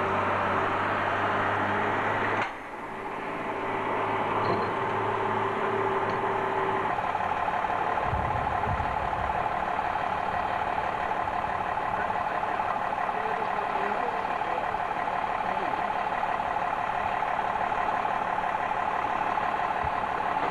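Heavy vehicle engines running steadily in a truck yard. The sound cuts out sharply about two and a half seconds in and comes back, and a steady whine joins it from about seven seconds in.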